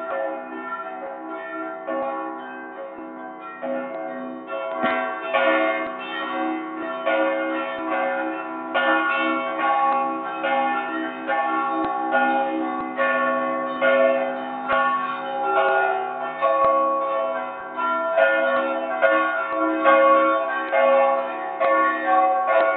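Church bells ringing a full festive peal, several bells of different pitch struck in quick succession, heard close up from inside the belfry. The ringing grows louder about five seconds in.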